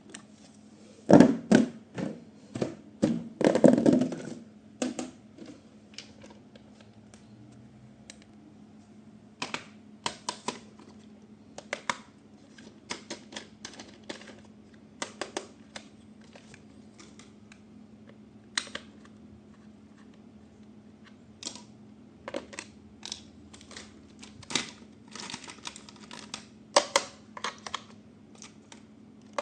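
Plastic toys and their packaging being handled during an unboxing: irregular sharp clicks and taps, with a louder, denser run of handling knocks in the first few seconds and another cluster near the end, over a faint steady hum.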